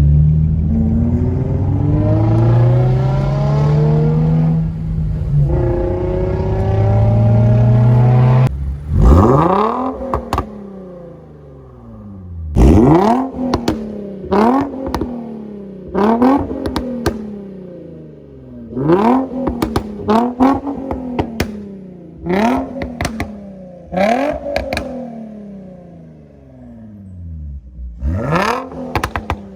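Nissan G35's 3.5-litre V6 through a full Motordyne exhaust, accelerating hard with an upshift about five seconds in. From about nine seconds on it is blipped in about nine quick, sharp revs, each dropping back to idle with popping and crackling from the exhaust.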